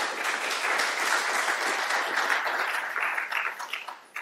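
Audience applauding, thinning out into a few scattered claps near the end.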